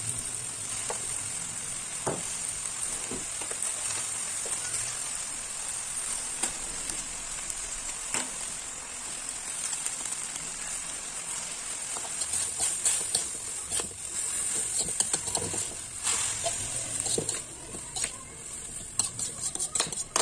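Watercress sizzling in a hot metal wok as it stir-fries. A metal spatula clinks and scrapes against the wok now and then, more often in the second half.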